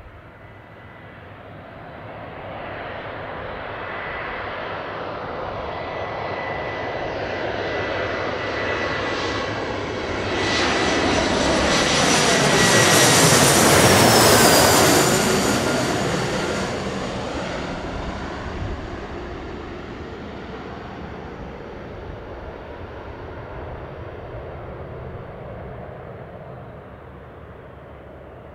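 Embraer ERJ-175's twin GE CF34-8E turbofans on landing approach, growing louder as the jet passes low overhead about halfway through, then fading. As it goes by, the high engine whine drops in pitch.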